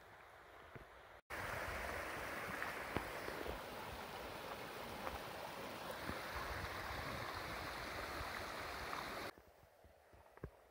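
Water of a small rocky mountain stream running over stones, a steady rushing noise that starts abruptly about a second in and cuts off near the end, leaving quiet outdoor background.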